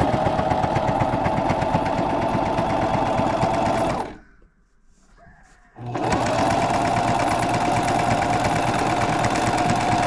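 Household electric sewing machine stitching at a steady speed, stopping about four seconds in for a short pause, then starting up and stitching again.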